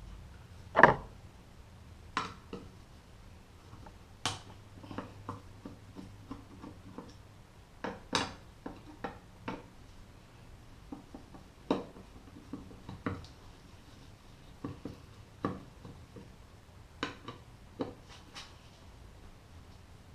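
Irregular clicks and light metallic clinks of a screwdriver and small carburetor parts being handled on a workbench, the loudest knock about a second in.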